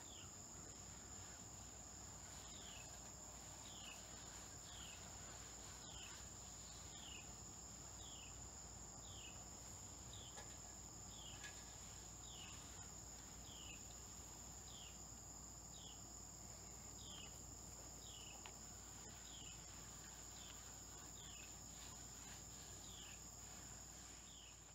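Faint, steady high-pitched trill of evening insects, with a short falling chirp repeating about once a second.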